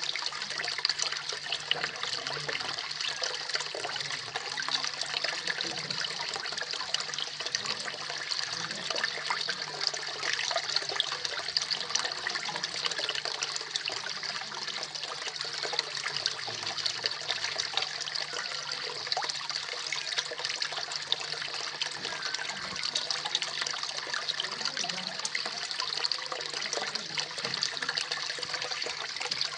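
Small garden-pond waterfall splashing steadily into a koi pond, a continuous trickling and splashing of falling water. A faint steady low hum runs underneath.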